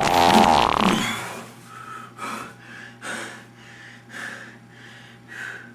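A person breathing heavily. A loud, rough rush of breath fills the first second, then short, loud breaths come about once a second.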